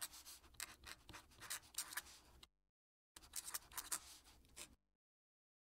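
Fountain pen nib scratching across paper in quick handwriting strokes, with a short break near the middle; it stops about three-quarters of the way through.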